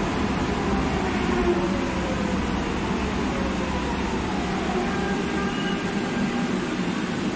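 Madrid Metro Serie 3400 electric train running slowly along the platform: a steady rumble of wheels on rail with a motor whine that falls in pitch over the first few seconds as the train slows.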